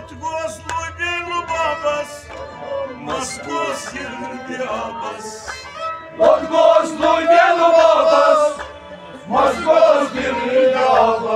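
Male voices singing a Kashmiri Sufi song to a harmonium. The singing swells into louder, long-held phrases about six seconds in and again near the end.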